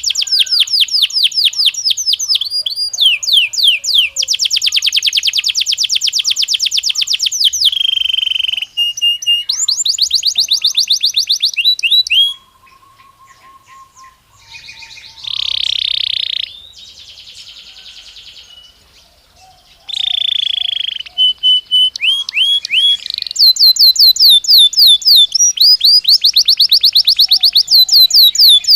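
Belgian canary singing: loud, rapid trills of repeated sweeping notes. About halfway through, the song drops away for several seconds, broken only by two short, harsher held phrases, and then the fast trills start again.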